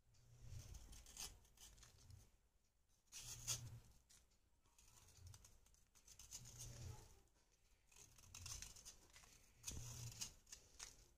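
Knife blade scraping a reddish bar held in the hand, shaving off powder: soft, faint rasping strokes in short bunches, with brief pauses between.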